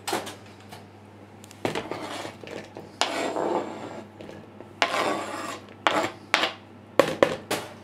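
Kitchen knife scraping chopped cooked broccoli across a cutting board into a plastic mixing bowl, with a series of sharp knocks and clinks of the knife and a spoon against the board and bowl.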